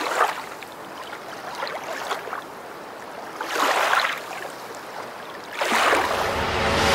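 River water rushing and washing past at the surface, an even hiss with louder swells about midway and near the end.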